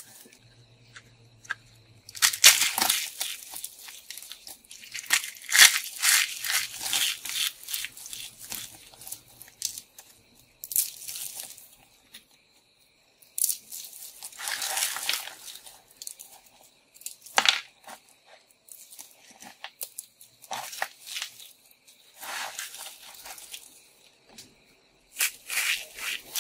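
Hands crushing and crumbling dry, brittle pieces of starch-coated soap: irregular spurts of crisp crunching and crackling with short pauses between, and one sharper crack about two-thirds of the way through.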